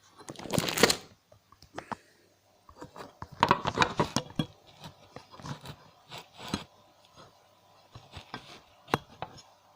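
Handling noise as the camera is repositioned: irregular knocks, scrapes and rubbing, with a burst about half a second in and a denser cluster from about three to four and a half seconds in, then a few scattered clicks.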